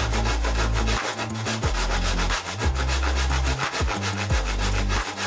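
Handsaw cutting through a wooden plank in fast, steady back-and-forth strokes.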